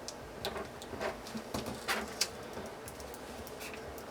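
Faint scattered ticks and light scraping rustles: a plastic squeegee being pushed across a hydrogel screen protector film on a phone's back.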